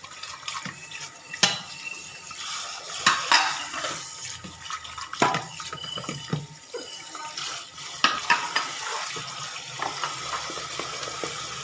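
Plates and bowls clinking and clattering as they are washed by hand and stacked at a kitchen sink, a sharp clatter every second or two over the steady hiss of the running tap.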